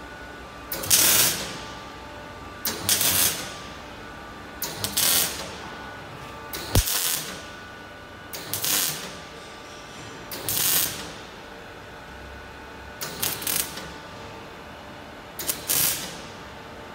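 MIG welding gun laying a row of tack or stitch welds: eight short bursts of arc noise, each under a second, about two seconds apart. One burst near the middle starts with a sharp click.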